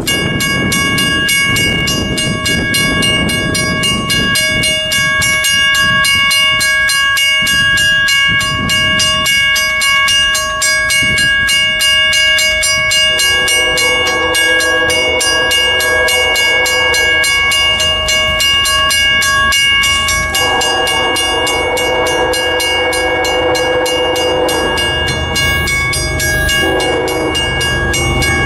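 A Western-Cullen-Hayes mechanical crossing bell rings rapidly and steadily on the signal. From about halfway through, an approaching freight locomotive sounds its chord horn in several blasts, getting louder toward the end.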